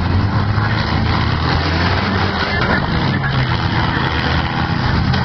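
Engines of several demolition derby cars running and revving together in a loud, steady roar.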